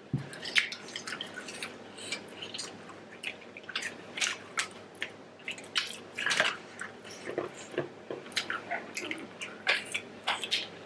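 Sauce-coated giant prawns being cracked and pulled apart by hand: irregular shell crackles and wet squishing.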